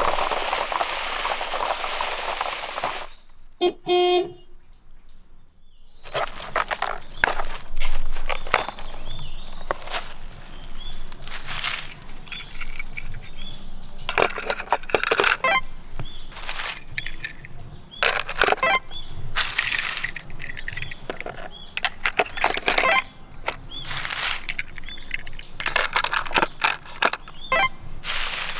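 Dry fallen leaves crunching and crackling: first a steady rush as a toy truck drives through them, then irregular bursts as hands rummage through the leaves and pick out small die-cast toy cars. A short chime sounds about four seconds in.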